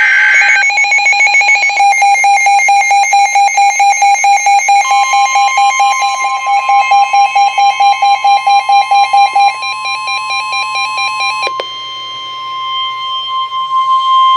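Emergency Alert System alert on NOAA Weather Radio. It opens with a short burst of the SAME digital header's warbling data tones, then a rapid electronic beeping alarm from the weather radio. The steady 1050 Hz warning alarm tone starts about five seconds in and holds, the signal that a spoken warning message follows.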